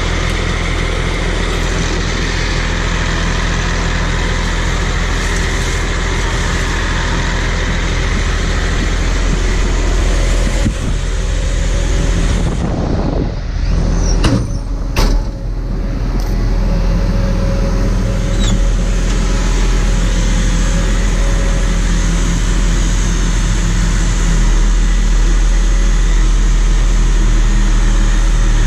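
A logging machine's engine runs at a steady speed. About halfway through it drops briefly and there are a couple of sharp knocks.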